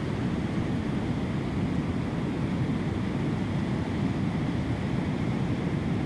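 Sea washing against rocks: a steady low rumble of surf with no separate wave crashes.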